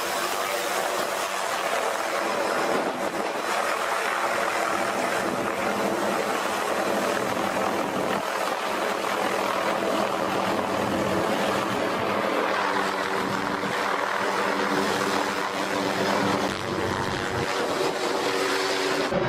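Helicopter running steadily, its engine and rotor noise loud and unbroken.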